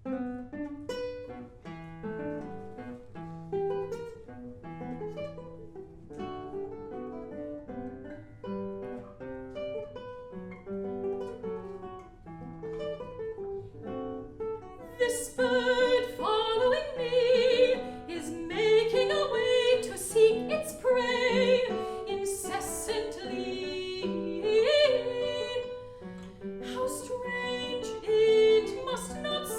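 Solo guitar playing a plucked introduction of single notes and chords; about halfway through a mezzo-soprano comes in, singing with vibrato in a classical art-song style over the guitar.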